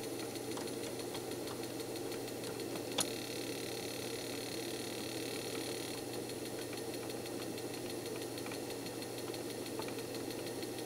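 Steady low hum and hiss from the running electronics and mechanism on the repair bench, with one light click about three seconds in.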